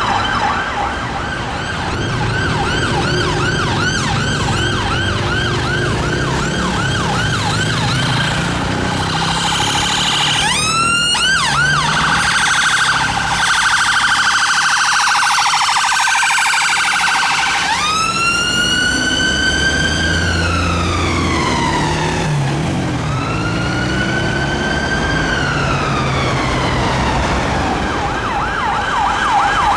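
Emergency vehicle sirens. First a police car siren on a fast yelp for about ten seconds. Then an ambulance siren on a very fast warble, which changes to two slow rising-and-falling wails, before a fast yelp returns near the end. Traffic rumbles underneath.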